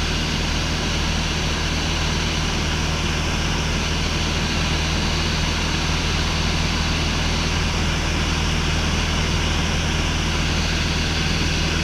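Cessna 150's four-cylinder Continental O-200 engine and propeller droning steadily in flight, with air rushing past.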